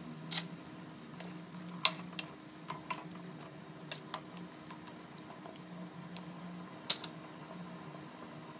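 Metal ladle stirring chicken soup in a wok, knocking and clinking against the pan. It gives a scattered string of sharp clicks, loudest about two seconds in and again about seven seconds in, over a low steady hum.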